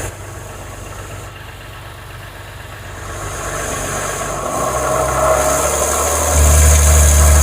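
Subaru Tribeca's 3.0-litre flat-six engine running, its revs brought up over the second half with a sharp rise in level near the end, to load it for an exhaust back-pressure test. The engine has a cylinder 1 misfire and a melted-down front catalytic converter.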